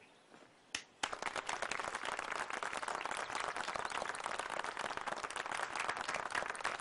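Crowd applauding: after a brief hush, many hands break into steady clapping about a second in.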